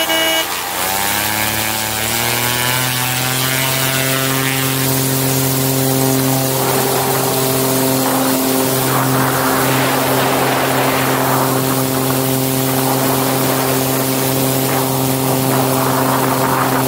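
Zenith Super701 STOL plane's ULPower engine and propeller throttling up for takeoff, the pitch rising over the first couple of seconds and then holding steady at full power through the takeoff roll and lift-off. A rushing wind noise builds from about six seconds in as the plane gathers speed.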